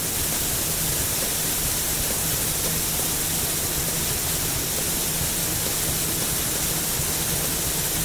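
A steady, loud hiss with a low, constant hum beneath it.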